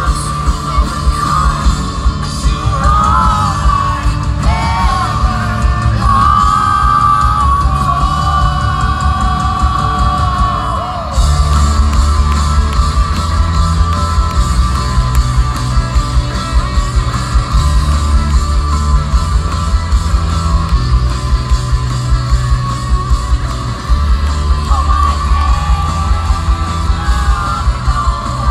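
Live folk-rock band playing loudly with singing over a driving drum beat, heard from within the crowd in a large hall. About a third of the way in, the band comes in harder with heavier drums and cymbals.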